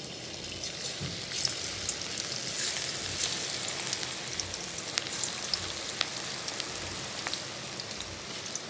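Onion and okra pakoras in gram-flour batter sizzling as they are dropped into hot oil in a kadhai: a steady frying hiss with a few sharp crackles.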